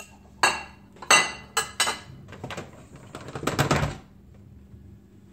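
Clanks, knocks and a scraping clatter as the lid of an electric pressure cooker is handled, twisted open and lifted off. Several separate knocks come in the first two seconds, a denser rattling scrape about three seconds in, then it stops.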